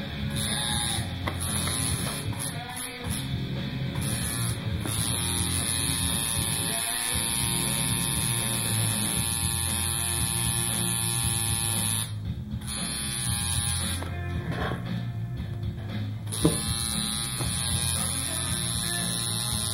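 Coil tattoo machine buzzing steadily, stopping and starting several times as it is lifted off the skin, with a longer pause near the end. Music plays underneath.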